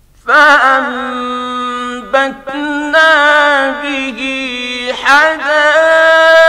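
A man's voice in melodic mujawwad Quranic recitation, starting suddenly about a quarter second in after a pause. He holds long, ornamented notes that waver in pitch, with short breaks, and ends on a long steady note.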